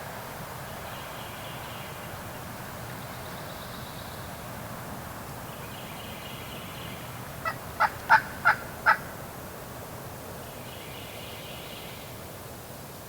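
A turkey calling: a quick run of five sharp notes about a third of a second apart, lasting about a second and a half, over a steady rush of wind.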